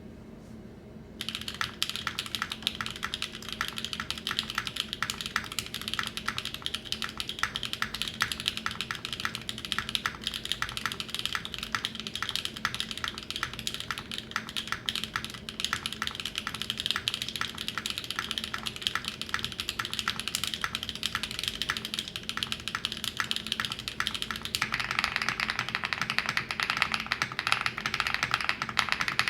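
Fast, continuous typing on a mechanical keyboard fitted with HMX Desert linear switches (POM stems, PA12 housings, 45 g), the keys clacking densely from about a second in. Near the end the clacks become fuller and a little louder.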